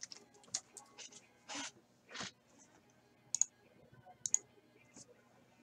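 Faint handling of trading cards and a torn foil pack wrapper: a few brief rustles and scattered sharp clicks.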